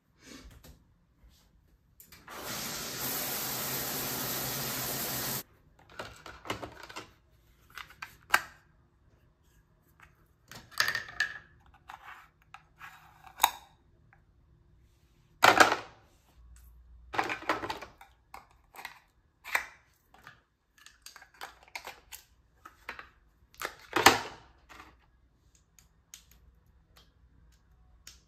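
Shower water running for about three seconds, then cutting off suddenly. After it come scattered clicks, knocks and rattles of toiletries being handled in a bathroom drawer and at the sink.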